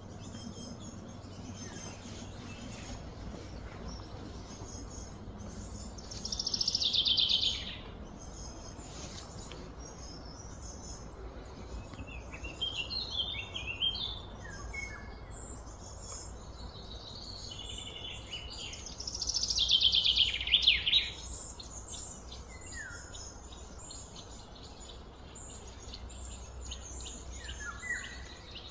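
Birds chirping and calling, with two louder calls lasting about a second and a half each, one around six seconds in and another around nineteen seconds in, over a steady low background rumble.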